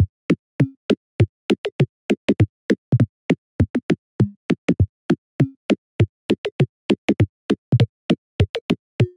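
Electronic background music: a choppy drum-machine beat of short, sharp hits, about four or five a second, with brief synth notes among them.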